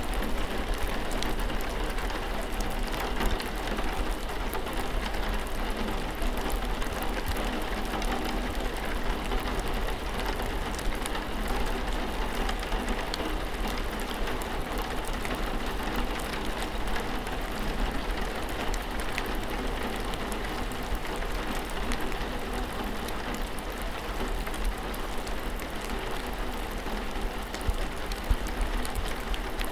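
Steady rain falling: an even hiss with scattered fine drop ticks and a low steady hum underneath.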